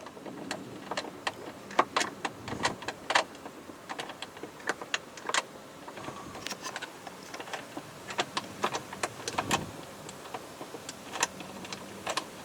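Irregular sharp clicks and knocks of hand work on plastic dashboard trim, as a panel is worked loose from its clips and fasteners.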